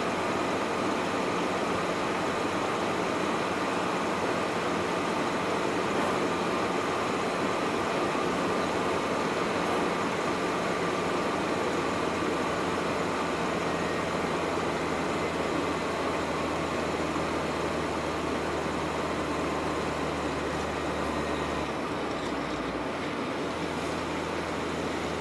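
Steady engine and tyre noise of a GAZelle van cruising on a highway, heard from inside the cab. The low engine note changes briefly near the end, then settles again.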